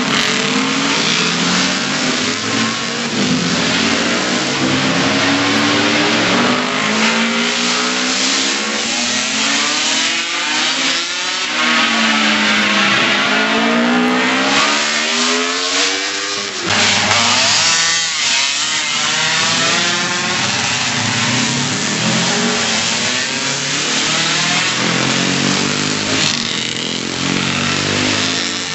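A stream of classic racing motorcycles passing one after another with open exhausts, engines revving up and dropping back through a bend, each pitch rising and falling as it goes by.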